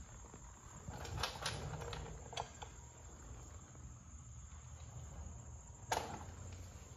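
Faint handling noise over a low steady hum: a few light clicks and taps, with one sharper click about six seconds in.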